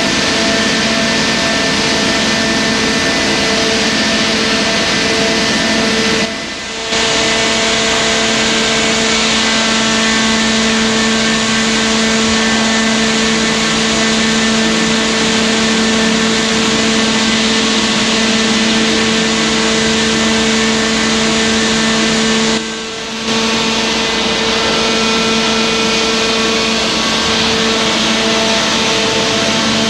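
Roundo R-21-S section bending machine running as its rolls bend a heavy square steel bar: a steady mechanical hum with a constant low tone, dropping out briefly twice.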